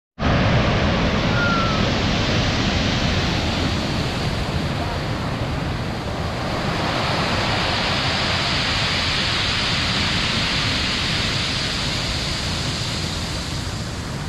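Sea surf breaking on a pebble beach and around a pier's legs: a loud, steady rushing wash of waves.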